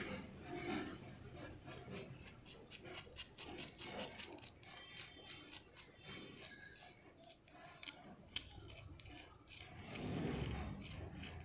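Quiet, quick irregular metallic clicks and ticks as fingers turn and handle a steel sleeve anchor bolt close to the microphone, with the nut and expansion sleeve clicking on the threads. A few sharper clicks come about eight seconds in, and a soft rustle of handling follows near the end.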